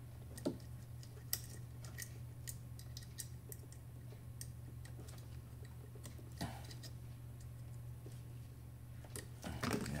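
Scattered light clicks and ticks of a Hermle Z206A centrifuge's replacement door-lock assembly being handled and its wire connectors worked on, over a steady low hum.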